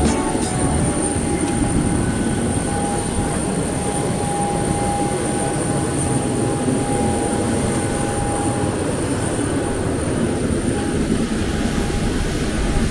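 Steady, loud mechanical rumble with hiss, and a thin whine that rises and fades in the middle; the sound stops abruptly at the end.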